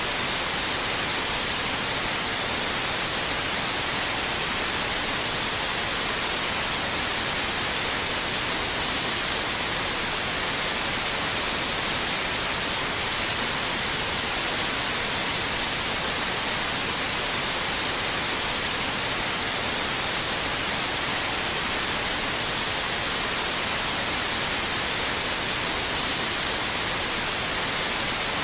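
Steady, unchanging white noise: an even hiss, strongest in the high frequencies.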